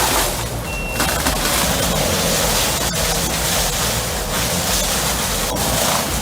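Heavy diesel wood-processing machinery running, a steady engine hum under the dense grinding noise of wood being shredded. A brief high beep sounds about a second in.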